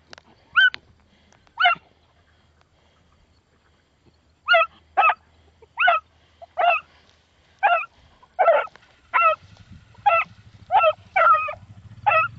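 Beagle baying on a rabbit. It gives two short bays, then after a pause a steady string of short bays, about one and a half a second: the hound has jumped the rabbit from the grass and is running it.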